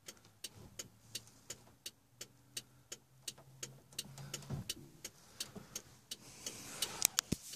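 A car's flasher relay ticking steadily, about three clicks a second, over a faint low hum, with a couple of louder sharp knocks near the end.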